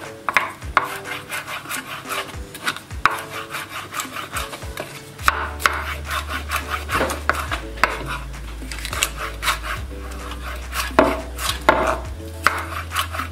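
Kitchen knife chopping a green bell pepper into large dice on a wooden cutting board: a quick, uneven run of blade knocks against the wood.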